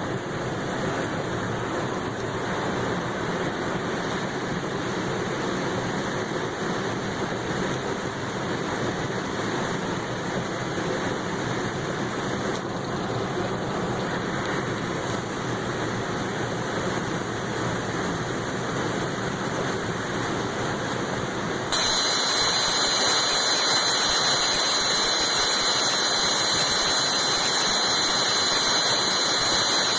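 Steady rushing noise of floodwater. About twenty-two seconds in it cuts abruptly to a louder hiss with a steady high whine.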